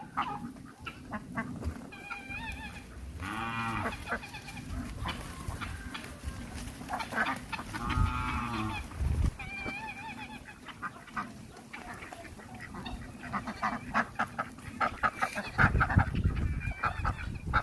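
Farm poultry calling: two long, drawn-out calls and runs of quick, short repeated notes, busiest near the end.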